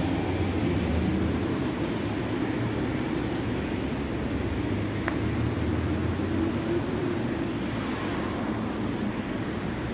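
Steady low rumble of city street traffic, even throughout, with one faint short tick about halfway through.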